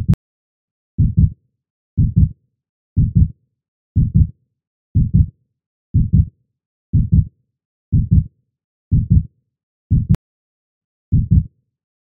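Heartbeat sound effect: deep lub-dub double thumps repeating steadily about once a second, with silence between beats.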